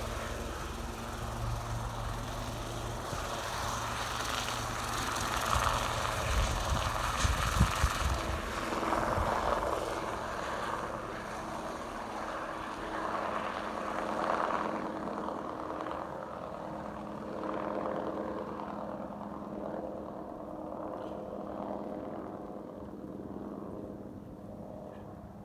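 Sikorsky S-76C+ twin-engine helicopter taking off and flying away, its rotor and turbine sound loudest in the first several seconds and then fading steadily into the distance.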